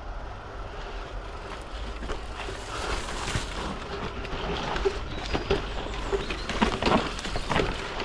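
Electric mountain bike riding down a dirt forest trail: tyres rolling over dirt and roots, with a steady rumble of wind on the helmet-mounted microphone. The bike's chain and frame rattle, and knocks from bumps come thicker and louder after about three seconds.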